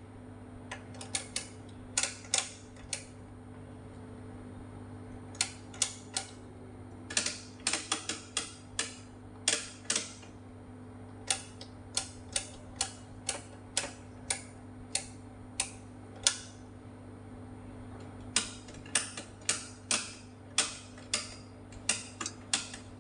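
Detent clicks of an analog oscilloscope's rotary selector knobs being turned: sharp, irregular clicks, sometimes several in quick succession, over a steady low electrical hum.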